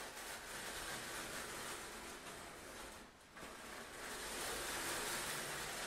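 Fabric curtain being drawn, the cloth sliding with a steady noise. It breaks off briefly about three seconds in, then starts again louder.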